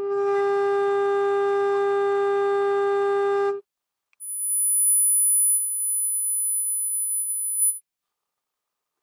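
Sine-wave test tones from a function generator played through a Lepy LP-2024A+ mini amplifier: a steady mid-pitched tone with a row of overtones that cuts off after about three and a half seconds, then, after a brief gap, a steady high-pitched pure tone lasting about as long.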